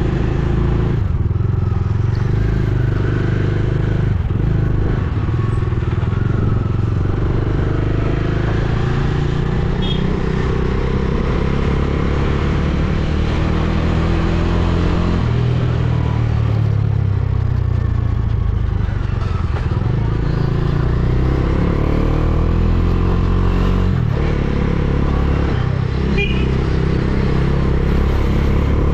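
Motorcycle engine running as the bike is ridden slowly along a road, its note rising and falling with the throttle.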